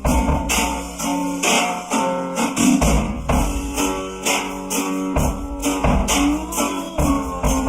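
Band music, an instrumental passage: guitar over a drum kit keeping a steady beat, with no singing.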